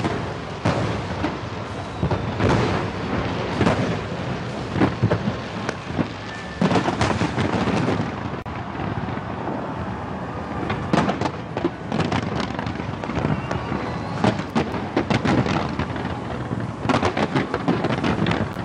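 Large fireworks display fired from a skyscraper's facade: rapid bangs and crackles coming in dense waves every few seconds, with short lulls between them.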